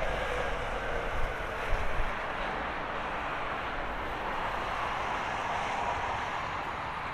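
Airbus A320neo jet engines during the landing rollout: a steady rush of engine noise with a faint whine that falls slightly over the first two seconds. A few low wind thumps on the microphone in the first two seconds.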